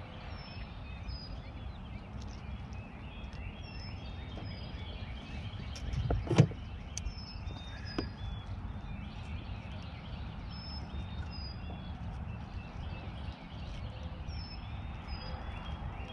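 Outdoor lakeside ambience: a steady low rumble with short, high bird chirps repeating throughout. A single sharp knock about six seconds in.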